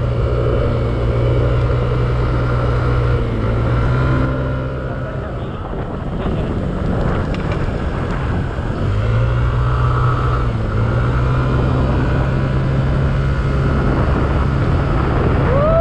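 Yamaha Aerox scooter's single-cylinder engine running at road speed. Its note fades for a few seconds about five seconds in, then comes back strong at about nine seconds as the scooter speeds up again.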